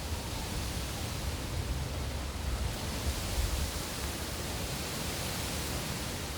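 Rain and wind: a steady even hiss with a low, gusting rumble of wind buffeting the microphone that swells around the middle.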